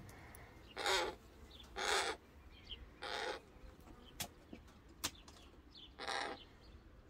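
A crow cawing: three short, harsh caws about a second apart, then a fourth after a pause of about three seconds. Two sharp clicks fall in the pause.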